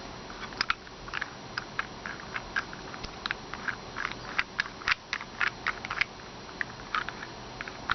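Wooden puzzle box being worked by hand: its pieces turned and ratcheted, giving a run of light, irregular wooden clicks and taps.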